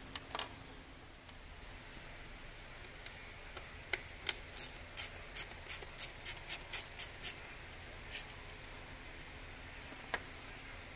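A run of about a dozen light, quick clicks, three to four a second, in the middle, with a few single clicks before and after, from hand work at a coolant pipe bracket bolt in the engine bay, over a faint steady hiss.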